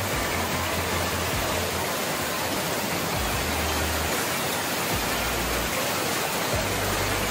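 Water overflowing a weir and crashing into churning white water below: a steady, loud rush.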